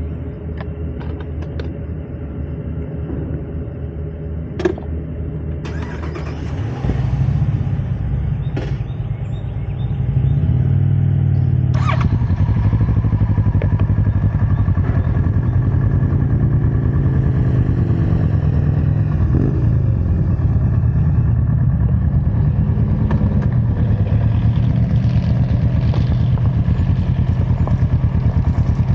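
Sport motorcycle engine idling steadily, with a few sharp clicks. The engine sound steps up in loudness about seven seconds in and again about ten seconds in.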